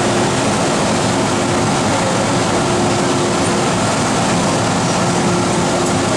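MTR M-Train standing at an underground station platform: a steady, even rush of the train's onboard equipment and station noise, with a faint hum that comes and goes.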